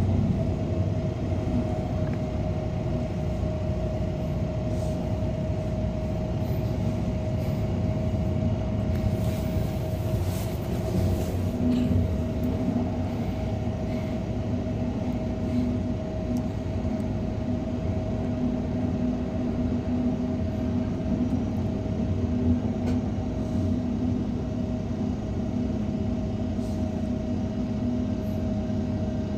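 Cabin noise inside an MTR Airport Express CAF electric train running along the line: a steady rumble of the wheels on the track with a constant high whine. A lower hum comes and goes through the second half.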